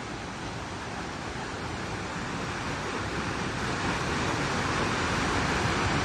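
A waterfall close up: a steady rush of water falling onto rocks, growing gradually louder.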